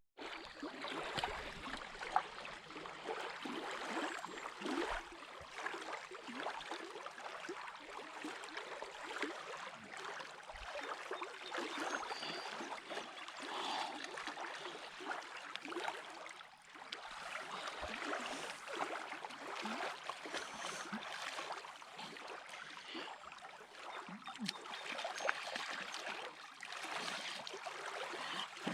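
Lake water lapping and trickling, with many small, irregular splashes throughout.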